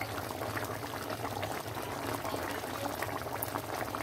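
Thick coconut curry sauce bubbling in a pan at a simmer, a steady crackle of small pops over a low hum.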